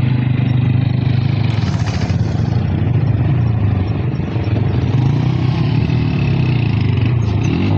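Motor vehicle engine running steadily under way, its note dipping slightly about four seconds in.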